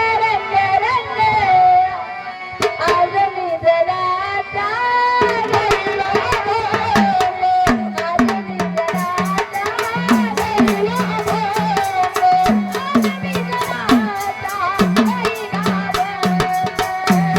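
Devotional folk music: a held, wavering melody line, joined about five seconds in by hand drums playing a steady rhythm of sharp strokes and low strokes that bend in pitch.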